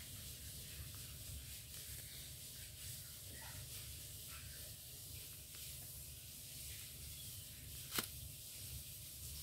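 Faint rustling and crinkling of a lined-paper origami ninja star being handled and folded, over a steady hiss and low hum, with one sharp click about eight seconds in.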